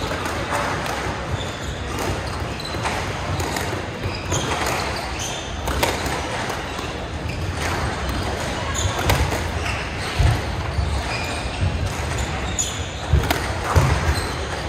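Squash rally: the ball is struck by rackets and smacks off the court walls again and again, with shoes squeaking and footsteps thudding on the wooden floor. It echoes in the enclosed court.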